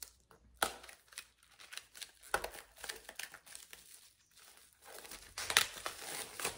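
Plastic shrink wrap being torn and peeled off a paperback book: irregular crackling and crinkling, loudest about five and a half seconds in.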